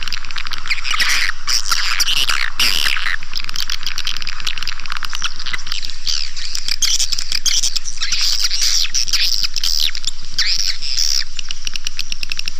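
Swiftlet call sound (suara panggil), a dense, continuous twittering of many overlapping high chirps, mixed for playback through tweeters to lure swiftlets into a nest house. It is thin and high, with no low end.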